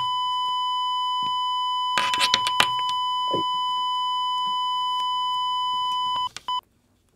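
Heart-monitor flatline: one continuous high electronic beep held for about six seconds, the sign of cardiac arrest, then two short beeps before it cuts off. A few clicks and a brief crackle of handling come about two to three and a half seconds in.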